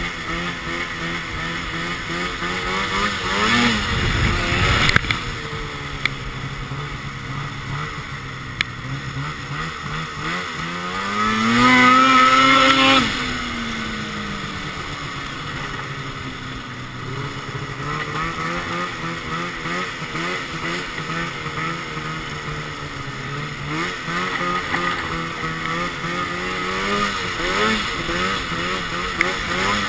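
2012 Arctic Cat XF 800 snowmobile's two-stroke twin, fitted with a Sno Stuff high-performance silencer, revving up and down as the throttle is worked. The loudest part is a long climb to a high rev about twelve seconds in, with shorter rises near the start and end, and a thump about four seconds in.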